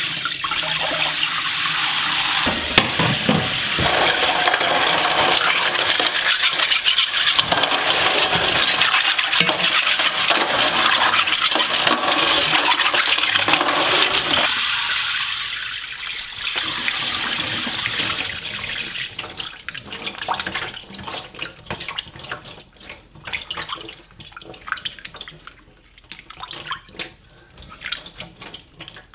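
Tap water running steadily into a stainless steel bowl as hands scrub clams under the stream. About two-thirds of the way through the running water stops, leaving quieter, irregular splashing and sloshing as hands rinse pieces of skate in the filled bowl.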